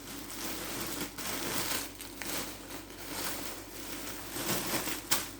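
Rustling and crinkling of clothing and its packaging being handled, with a sharp click about five seconds in.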